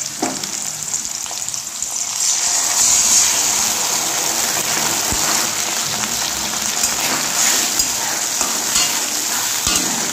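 Onions and capsicum frying in oil in a wok, sizzling; the sizzle swells about two seconds in as a cornflour, ketchup and soy sauce mixture is poured in. A spatula stirs near the end.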